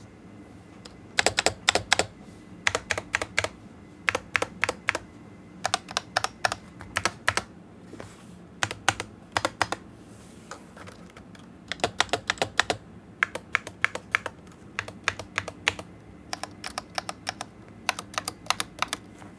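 Typing on a Razer Huntsman V2 Analog keyboard with its Razer Analog Optical switches: quick runs of sharp key clicks in bursts, broken by short pauses.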